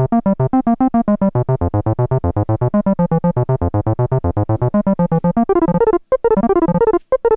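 Donner B1 analog bass synthesizer, a TB-303-style clone, playing a fast, repeating sequenced bass line of short notes, about nine a second. About five and a half seconds in, the pattern changes to a different, higher-pitched sequence with brief breaks: the sequencer moving on to the next sequence.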